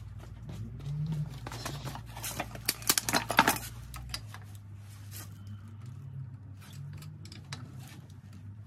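Metal clicks and clinks of a hand tool working on a pickup's front brake caliper and hub, with a dense run of clicks about three seconds in. A steady low hum runs underneath, and its deepest part cuts off about four seconds in.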